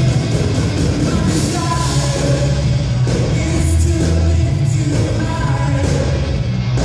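Live worship band playing a loud rock-style song, with electric guitars and a heavy bass under several singers leading.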